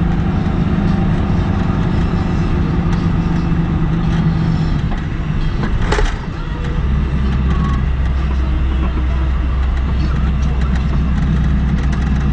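Car engine and road noise heard from inside the moving car's cabin, running steadily. About six seconds in there is a brief click and the engine hum drops to a lower, steady note.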